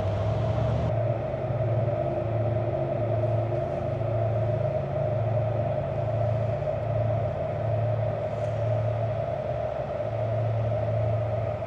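Ducati Panigale V4 motorcycle's V4 engine running at steady revs while riding, a constant drone with a low pulsing rumble underneath.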